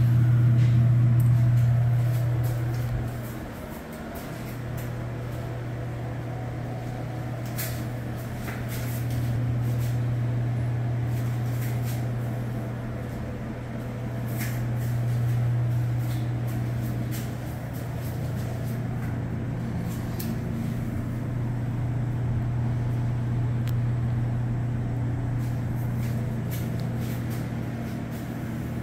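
Steady low hum in a small tiled bathroom, swelling and fading in loudness, with a few faint clicks over it.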